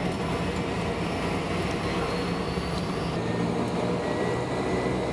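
Steady drone of a light propeller aircraft's engine, heard from inside the cockpit.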